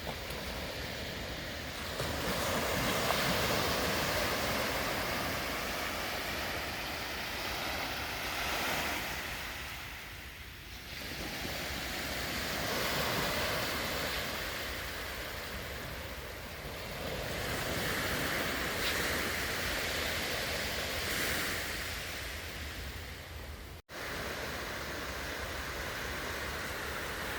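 Sea surf breaking and washing up on the beach, swelling and ebbing every few seconds, with wind rumbling on the microphone. The sound cuts out for an instant near the end.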